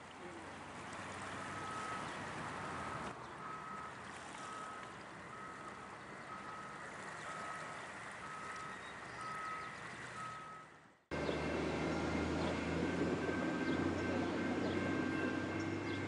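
A vehicle's reversing alarm beeps faintly about once a second over a quiet hiss. About eleven seconds in, this cuts off abruptly and a louder, steady low engine rumble begins.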